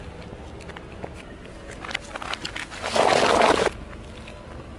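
Objects being crushed under a car tyre on asphalt, played backwards: scattered crackles for under a second, then a dense crunch of about half a second that cuts off suddenly about three and a half seconds in.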